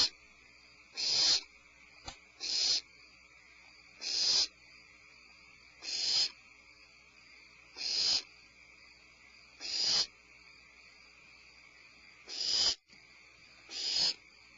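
Barn owl giving short, raspy, hiss-like calls about every one and a half to two seconds, like hiccups.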